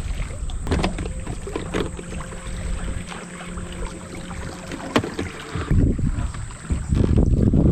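Wind buffeting the microphone on a fishing boat, with a few sharp knocks and a steady low hum for several seconds in the middle. The wind rumble is strongest near the end.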